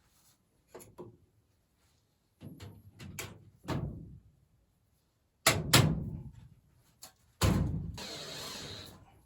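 Irregular knocks and clanks of tools and parts being handled during a furnace installation, the loudest pair about five and a half seconds in and another near seven and a half seconds, followed by about a second of rushing noise.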